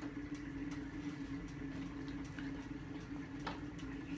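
Faint scattered clicks over a steady low hum, with one sharper click about three and a half seconds in.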